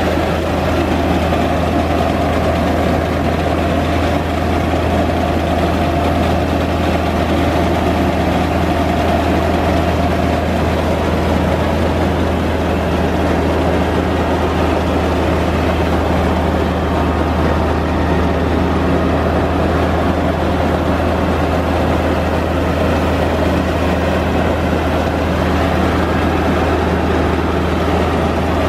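Truck-mounted rice and corn mill running: a loud, steady drone of its engine and milling machinery, unchanging in pace.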